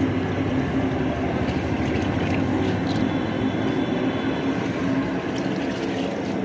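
Gas burner running under a pot of boiling water: a steady rushing noise with a low hum.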